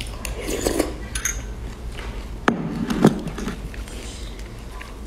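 A spoon clinking against a small ceramic bowl, then the bowl set down on a wooden board with two knocks about halfway through.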